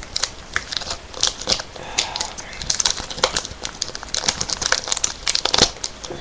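Plastic trading card booster pack wrapper crinkling and tearing as it is opened and handled, with many irregular sharp crackles.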